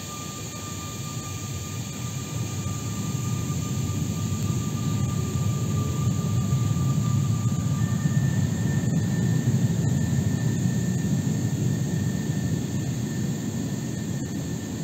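Aeroexpress ESh2 double-deck electric train pulling out and accelerating away. The rumble of its wheels on the rails grows louder as it gathers speed, then eases a little near the end. Over the rumble runs a steady electric whine that jumps higher in pitch about eight seconds in.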